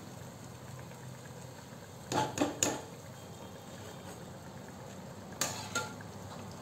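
Vadas deep-frying in hot oil in a kadhai, the oil sizzling and bubbling steadily. A metal slotted spoon clinks sharply against the pan a few times about two seconds in, and once more after about five seconds.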